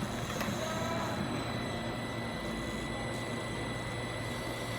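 Steady hum of powered-up workshop machinery, with a low drone and a thin, constant high whine.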